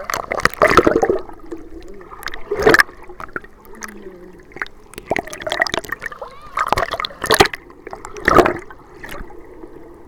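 Ocean water sloshing and splashing over a handheld camera as a wave breaks over it and it dips in and out of the surf, with muffled gurgling while it is under. There are several loud splashes, the strongest a little under a second in, about two and a half seconds in, and between seven and eight and a half seconds in.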